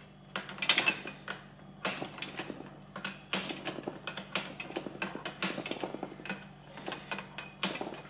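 Steel spanner clicking and clinking irregularly against the brass quick-coupling nuts on a fridge's refrigerant lines as they are worked loose, with many short sharp metal clicks.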